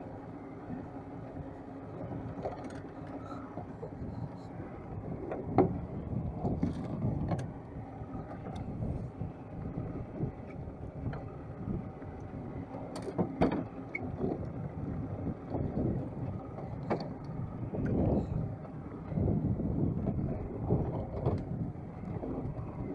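Small fishing boat under way: its engine runs steadily under a rumble of water and wind noise, with occasional knocks.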